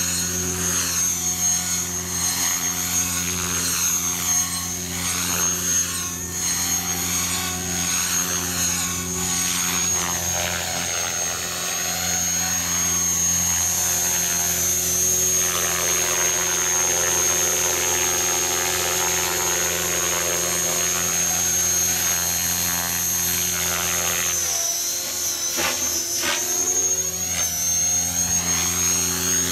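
Radio-controlled model helicopter in flight: a steady high whine over the drone of its rotor and drive. The sound shifts about 25 seconds in as the helicopter climbs away.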